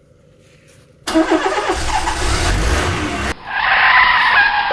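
Dubbed-in car sound effects: about a second in, a loud noisy rush with a deep rumble starts, and after about two seconds it gives way to a higher, pitched skid-like sound.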